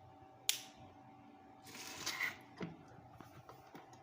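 A single sharp click about half a second in, as the switch of a 13 A single wall socket is flicked on, followed by brief rustling handling noise and a softer knock.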